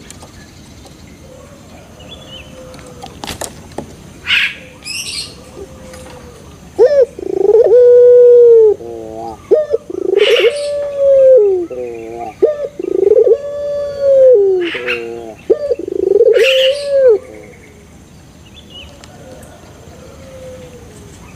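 Young puter pelung, a domestic Barbary dove kept for its long coo, cooing loudly. About seven seconds in it gives four long, drawn-out coos, each linked to the next by a short rolling trill, then falls quiet.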